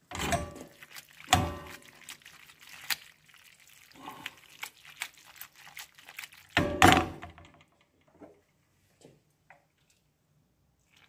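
Aluminium frying pan of sauced pasta being tossed and shaken on a gas-hob grate: a series of metal knocks and scrapes against the grate with the pasta shifting in the pan, the loudest knock about seven seconds in, then only a few faint clicks.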